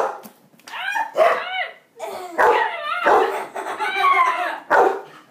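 A child's voice imitating a dog for a dog sock puppet: a string of high, yelping barks and yips.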